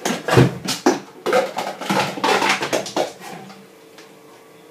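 Plastic food containers being stacked and handled on a kitchen counter: a quick run of knocks and lid clicks for about three seconds, then only a few faint knocks.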